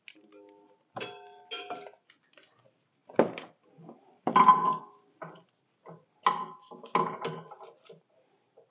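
Hydraulic hoses with metal coupler ends being fed through a compact tractor's front frame, clinking and knocking against the metal in a series of separate hits, the loudest about four seconds in.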